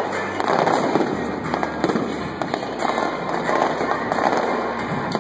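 Fireworks finale barrage: many shells bursting at once in a rapid, continuous run of overlapping sharp bangs and crackles.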